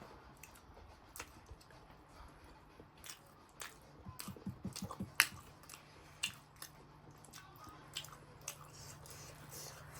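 Close-up chewing and biting of food, with short clicks and smacks at irregular intervals and one sharper click about five seconds in.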